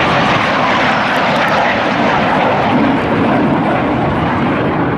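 A pair of BAC 167 Strikemaster jets, each with a single Rolls-Royce Viper turbojet, flying past in a display. A loud, steady rush of jet engine noise.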